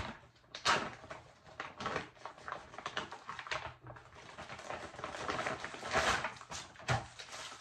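Thick plastic MRE meal pouch being torn open and handled: irregular crackling and crinkling of the heavy bag as the packets inside are pulled out and shifted.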